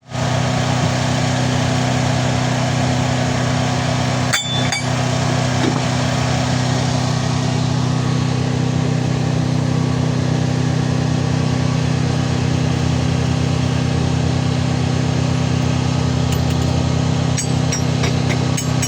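An engine-driven machine running at a steady speed with a constant hum. A couple of sharp metallic clinks come about four seconds in and a few more near the end.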